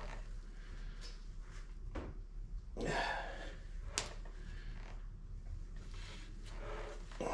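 Hands working on a bare V8 engine block while lining up its pistons: quiet handling noises, a heavy breath about three seconds in and a single sharp click a second later.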